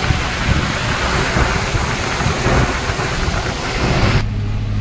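Loud rushing and buffeting inside a moving truck's cab, wind hitting the microphone through the open side window over the rumble of the road and engine. Near the end it cuts off sharply to a steady, lower truck-engine drone.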